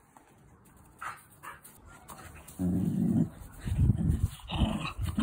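Dog growling in play, in low, uneven spells that start about halfway in.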